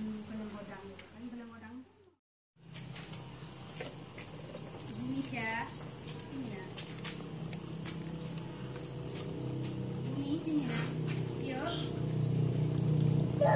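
Crickets chirring steadily in a continuous high-pitched drone, with a short dropout about two seconds in. A low rumble from the coconut-husk fire burning in the grill grows louder toward the end.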